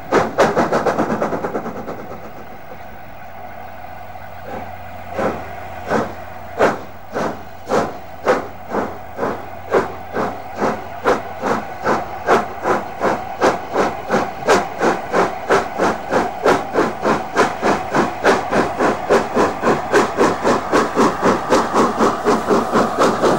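LNER A4 Pacific No. 60009 Union of South Africa, a three-cylinder streamlined steam locomotive, starting away with a train. It opens with a loud rush of steam, then its chimney exhaust beats, slow at first at about one a second, quicken steadily to about four a second as it gathers speed.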